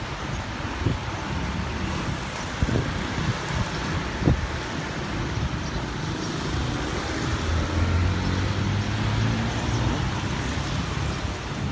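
Road traffic noise with wind on the microphone and a few thumps; a vehicle engine's low hum grows louder about two-thirds of the way in.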